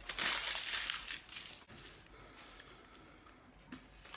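Paper fast-food burger wrapper crinkling and rustling as it is handled and opened, loudest for about the first second, then dying down to faint small rustles.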